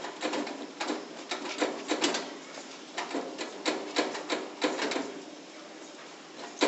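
A hand tool scraping and levering at the door edge of a Modul-Safe metal security locker in a break-in attempt. It gives irregular clusters of sharp clicks and metallic scrapes, which ease off for a moment about five seconds in.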